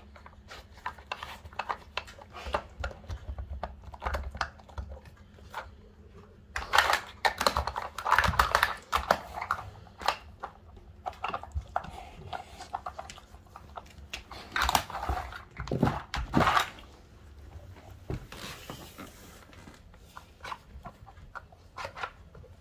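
A Cane Corso noses and paws at a plastic Nina Ottosson Dog Brick treat puzzle, making irregular clacks and knocks of plastic lids and covers, with the dog panting. The knocking is busiest and loudest about a third of the way in and again a little past halfway.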